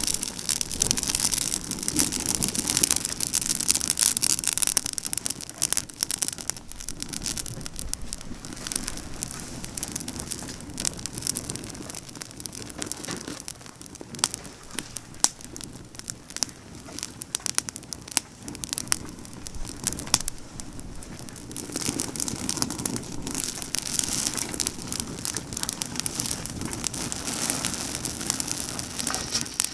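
Pine-branch campfire burning briskly, with dense crackling and popping over the hiss of the flames. It grows louder at the start and again about three-quarters of the way through.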